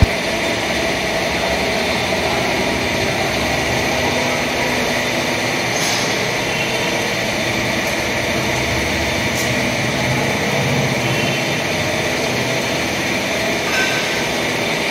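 Steady, even machine noise in a motorcycle workshop, with no rise or fall.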